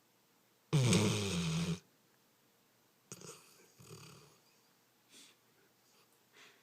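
A sleeping dog snoring: one loud snore about a second long with a wavering pitch, then a quieter drawn breath and two faint puffs of breath near the end.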